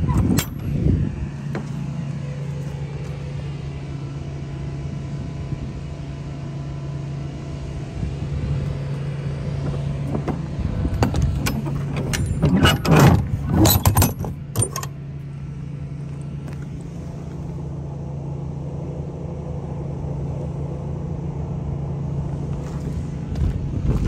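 A truck's diesel engine idling steadily, with a few sharp metallic knocks and rattles around the middle.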